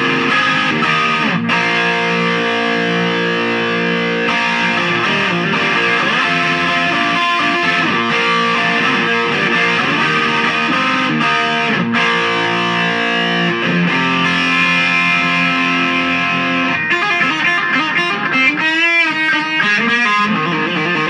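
Overdriven electric guitar: a Les Paul-style guitar with Seymour Duncan '59 pickups, driven by an LPD Saguaro overdrive pedal into a Marshall MOSFET Lead 100 solid-state head and a Vox 1x12 cabinet with a Celestion speaker, playing sustained rock chords and lead lines, with bent, wavering notes near the end.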